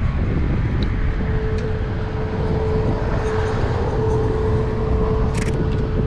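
Street traffic noise: a low rumble with a vehicle's engine drone holding one steady tone from about a second in, and a short sharp click near the end.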